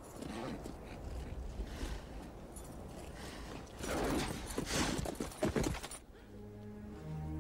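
A horse stamping and scuffing its hooves in dusty ground as it turns and rears, loudest about four to five seconds in. About six seconds in this stops suddenly and low, steady music begins.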